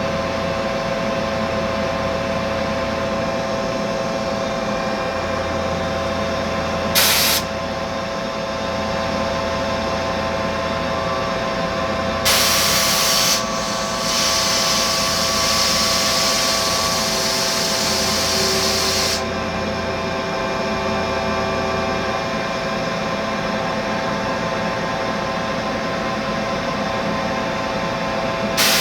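Mazak Integrex multitasking CNC machine running while it machines an aluminium part: a steady machine hum made of several tones, with a lower drone that comes and goes. There are short bursts of hiss about 7 seconds in and near the end, a louder one about 12 seconds in, and a sustained high hiss lasting about five seconds from around 14 seconds.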